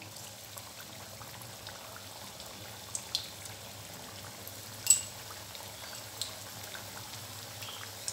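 Cabbage and moong-dal bijora patties deep-frying in hot oil: a steady bubbling hiss with a few sharp pops, the loudest about five seconds in.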